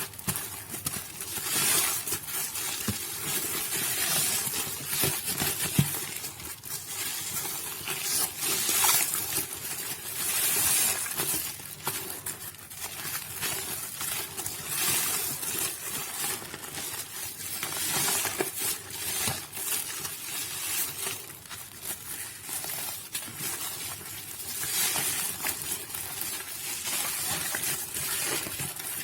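Soaked Nuvo bar soap being squished and crumbled: a dense, wet crackling that swells and eases every few seconds.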